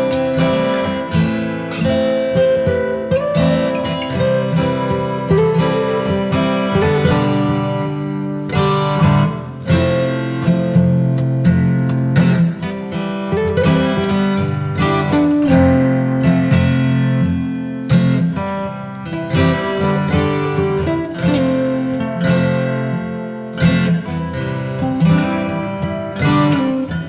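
Background music: acoustic guitar, plucked and strummed chords at a steady pace.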